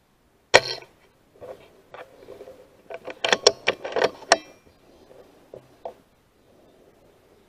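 A single rifle shot about half a second in, a sharp crack with a short ringing tail, fired at a crow on a wire. It is followed by scattered knocks and, around three to four seconds in, a quick cluster of metallic clicks as the rifle is handled.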